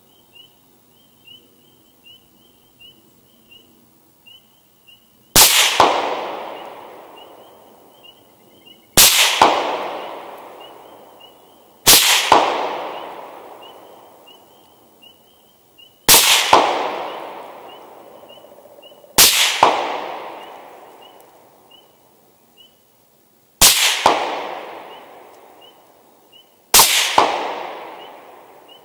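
Rifle shots fired one at a time at a 300-yard target, seven shots about three to four seconds apart. Each one is a sharp crack followed by a long echo that fades over a couple of seconds.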